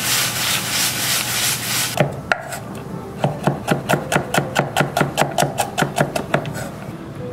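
A stainless-steel sauté pan of fruit sizzling as it is tossed over a gas flame. About two seconds in, this gives way to a chef's knife chopping almonds on a wooden cutting board, with a rapid, even run of about five strokes a second.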